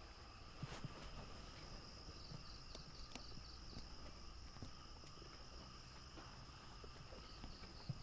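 Faint, steady trilling of night insects such as crickets, held at a few even pitches, with a few soft clicks and rustles.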